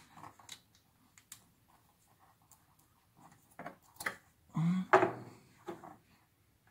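Light clicks and taps of a scooter's charging relay and its plastic wiring connector being handled and unplugged, with louder handling noise around four to five seconds in.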